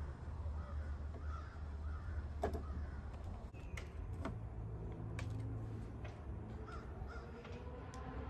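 Crows cawing in the background, a few calls about a second in and again near the end. Sharp metallic clicks and taps come from a hand screwdriver driving screws into the cross bar's bracket, over a steady low hum.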